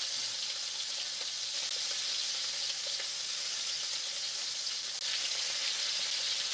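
Pieces of beef tenderloin searing in hot vegetable oil in a wok, a steady sizzle that grows a little louder about five seconds in.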